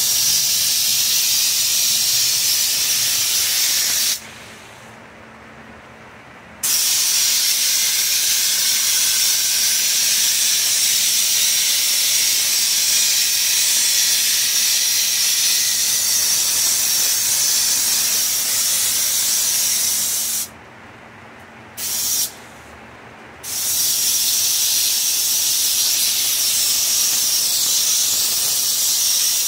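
Compressed-air spray gun hissing as it sprays textured Raptor bed liner, in long trigger pulls. The hiss cuts off for about two seconds around four seconds in, and again around twenty seconds in, with one short burst in that second gap.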